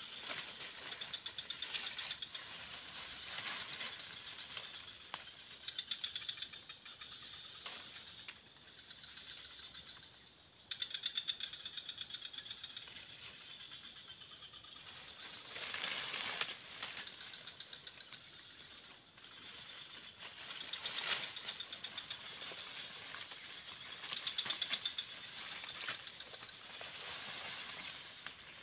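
Insects chirring: a steady high whine with rapid trills that start and stop every few seconds, and a few faint clicks.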